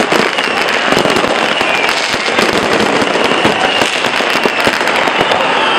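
Dense, continuous crackling and popping of many fireworks and firecrackers going off at once, a steady barrage with no single bang standing out.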